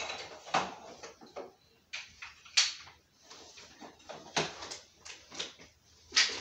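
Toys clattering and knocking together as a child rummages through a plastic storage bin full of them: a run of irregular knocks, with the sharpest one about two and a half seconds in.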